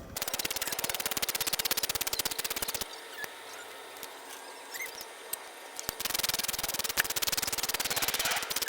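Ratchet wrench clicking rapidly as new spark plugs are run into the engine's cylinder head, in two spells with a quieter pause and a few single ticks in between.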